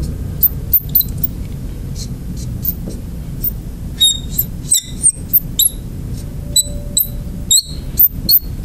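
Marker squeaking and ticking on a glass lightboard in short strokes as a chemical structure is drawn, over a steady low hum.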